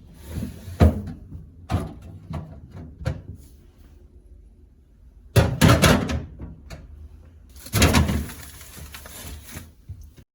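Kitchen handling clatter: a few separate sharp knocks, then two spells of dense clattering, like things being moved about and set down while cleaning a kitchen.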